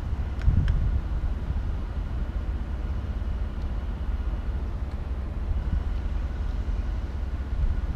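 Steady low outdoor rumble, with a faint steady hum above it and two faint clicks about half a second in.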